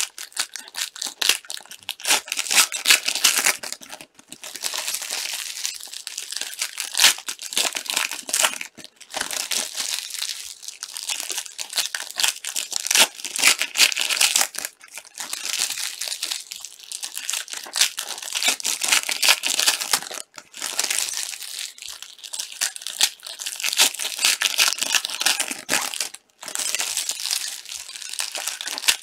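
Silver foil wrappers of Topps Chrome trading-card packs being torn open and crumpled by hand: continual crinkling and crackling with a few short pauses.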